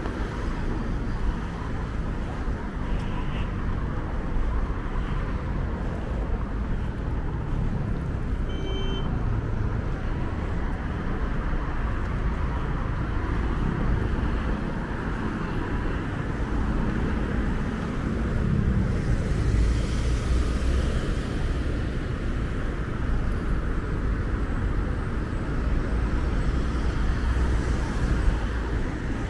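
Road traffic on a city street: a steady rumble of cars, with one vehicle passing close about two-thirds of the way through, its engine tone rising and falling.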